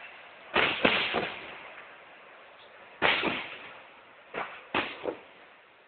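Fireworks shells bursting: a series of sharp booms, three in quick succession about half a second in, one near three seconds, then three more shortly after four seconds, each trailing off in a long echo.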